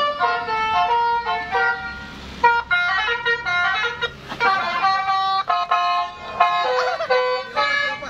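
Telolet horn, an electrically switched multi-tone horn, playing a quick melody of short toots that hop from pitch to pitch.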